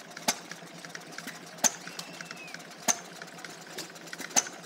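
A vintage stationary engine working a bucket milking machine: steady light mechanical ticking, with a sharp click about every 1.3 seconds.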